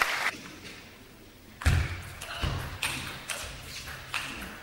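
Table tennis rally starting: two low thuds, then the celluloid ball clicking sharply off bats and table about twice a second.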